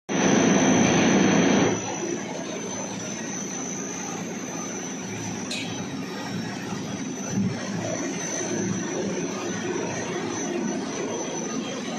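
Steady running noise of pet food production line machinery, with a thin high whine on top. The noise is louder for the first couple of seconds, then holds even, with one brief click about halfway.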